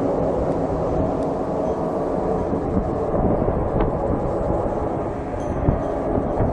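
Steady low rumbling drone with a faint hum running through it, the kind of unexplained sky noise reported as a 'strange sound'; a few faint clicks on top.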